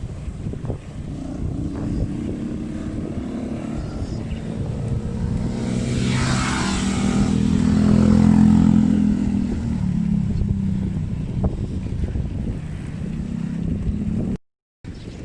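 A motor vehicle engine grows louder to a peak around the middle and then fades, as a vehicle passes close, over steady wind rumble on the microphone. The sound cuts out briefly near the end.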